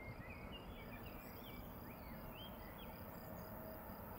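Faint outdoor ambience: small birds chirping in quick rising and falling notes, with a high insect-like trill pulsing evenly, over a steady low rumble.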